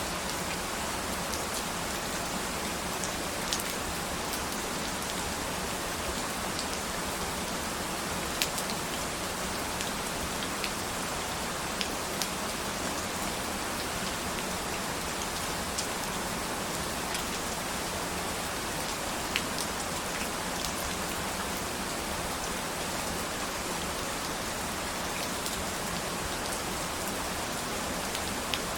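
Steady rain falling, an even hiss with a few individual louder drops ticking at scattered moments.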